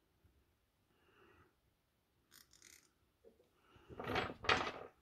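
Two quick, loud puffs of breath close to the microphone near the end, a person exhaling or blowing. Before them there are only faint small ticks and a brief hiss from bench work with a soldering iron on the battery's circuit board.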